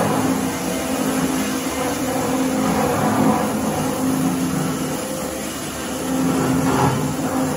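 Automatic pipe-cutting circular saw machine running with a steady motor hum, swelling slightly about three seconds in and again near the end.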